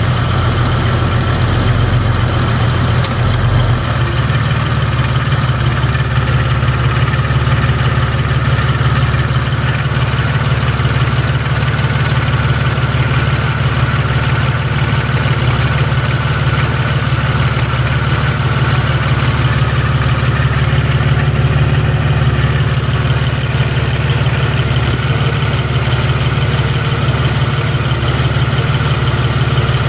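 Jeep Grand Cherokee WJ's 4.0-litre inline-six running steadily with a ticking noise, which the owner suspects comes from the flex plate and a shop thinks more likely comes from the torque converter. The engine note shifts about four seconds in.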